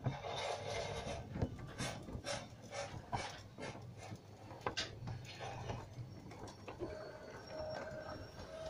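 LGB G-scale model train pulling away: a burst of hiss, then a run of sharp beats about three a second, and from about seven seconds in a steady high two-note tone.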